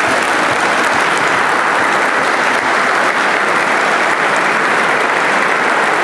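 Sustained applause from a large crowd of dinner guests, dense and steady.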